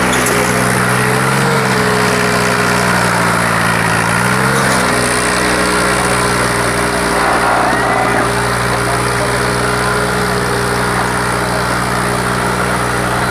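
Tractor diesel engine labouring as it drags a heavy harrow in a pulling contest. Its pitch rises and falls twice in the first five seconds, then holds steady, with the engine putting out black smoke under the load.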